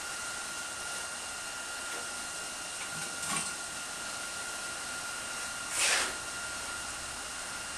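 Steady hiss with a thin, high, steady whine, broken by two short rustling noises, a small one about three seconds in and a louder one about six seconds in.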